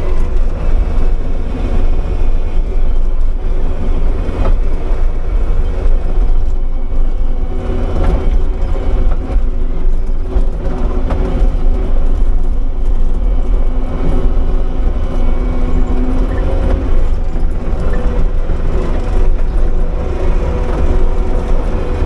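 Kubota SVL75-2 compact track loader's diesel engine running steadily under load, driving a Bobcat Brush Cat rotary brush cutter as it mows dry grass and weeds, heard from inside the cab with a heavy low drone.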